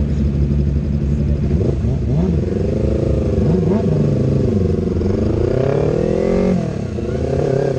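Yamaha R3's 321 cc parallel-twin engine runs at low revs, then pulls away with the revs rising and falling several times. The revs drop suddenly near the end, then pick up again.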